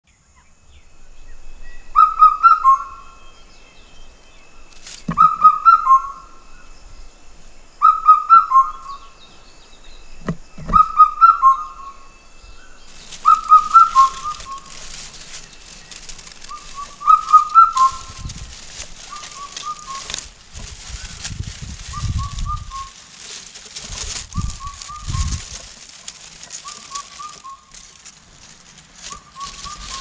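A cuckoo calling: a whistled phrase of four quick notes, repeated about every three seconds, growing fainter after about 18 seconds. From about 13 seconds in, dry grass rustles, with dull low thuds in the middle stretch.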